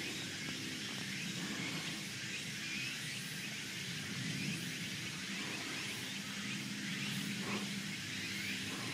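Steady outdoor background noise: an even hiss with a low hum underneath, and no distinct sound standing out.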